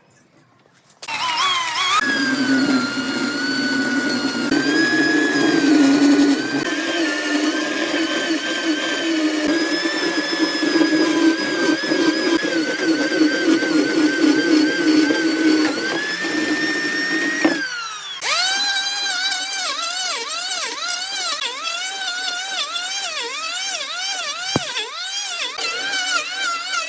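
Electric power tool motor spinning up, running with a whine that wavers in pitch as it cuts wood, then winding down and starting again with its pitch dipping over and over under repeated load.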